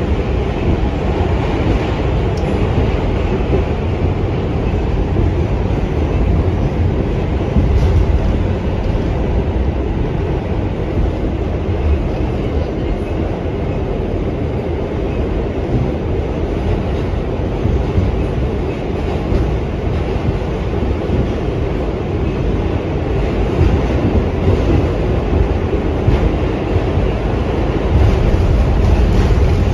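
A moving A-train subway car running on the tracks, heard from inside the car: a steady rumble of wheels and rails that grows louder near the end.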